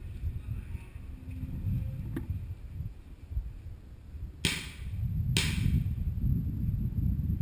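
Two airsoft gun shots about a second apart, each a sharp crack with a hissing tail, over a steady low rumble of wind and movement on the microphone.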